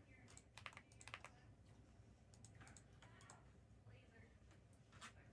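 Near silence with faint, scattered clicks and taps, a few each second.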